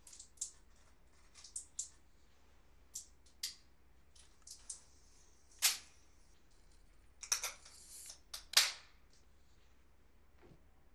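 Scattered sharp crackles and clicks from a small object being fiddled with in the hands, in a dozen or so irregular bursts. The loudest come about halfway through and again near the end.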